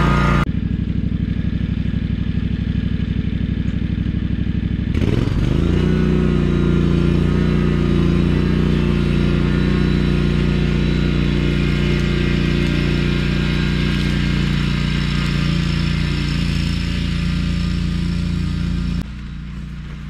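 John Deere 737 zero-turn mower's engine running. About five seconds in it revs up, the pitch climbing, and then holds a steady, higher-speed run while mowing. Near the end it drops abruptly to a quieter level.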